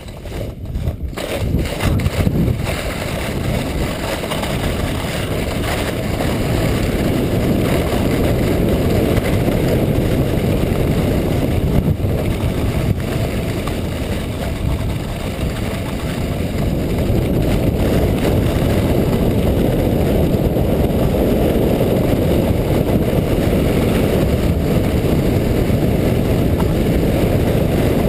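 Sled sliding down a groomed snow run: a steady low rumble of its runners over the snow mixed with wind buffeting the camera's microphone. It builds over the first couple of seconds as the sled picks up speed from a standstill, then holds at speed.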